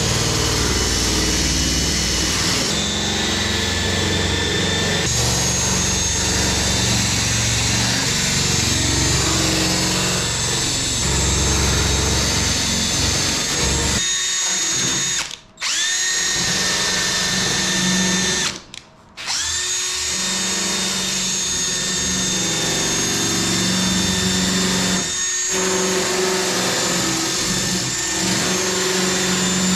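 A small high-speed power tool grinding as it deburrs the lightening holes in an aluminum wing spar: a steady whine over a grinding rasp. About halfway through it stops briefly twice, each time spinning back up to speed.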